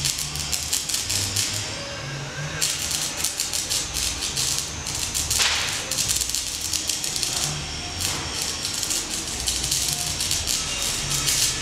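Stick-welding arc crackling and sputtering as the rod burns, run off lithium batteries through jumper cables. The crackle thins out briefly twice, about two seconds in and again near eight seconds.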